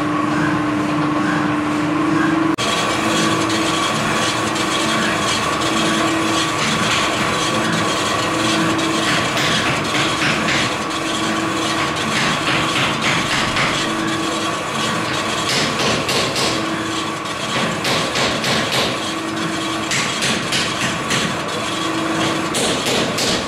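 Mazak conventional lathe turning the crowned face of a 600 mm flat-belt pulley. The machine runs with a steady whine and a lower hum that swells about every two and a half seconds. About two seconds in, the cutting tool bites and adds a rough scraping hiss, which turns to a fast rattling in the second half.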